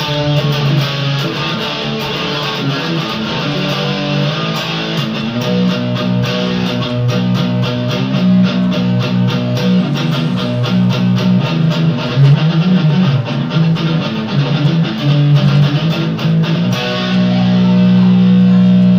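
Home-built hybrid electric-acoustic guitar, the 'Sphinx', played through a distortion tone. It plays a chord riff over B minor, D major, A major and G, with quick picked strokes through the middle and a chord left ringing near the end.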